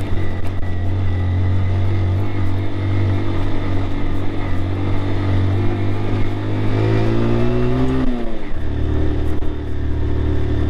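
Honda CG 160 Titan's single-cylinder four-stroke engine pulling in first gear over a loose, rocky dirt road, where second gear won't pull. The revs build gradually, drop suddenly about eight seconds in, then settle back to a steady pull.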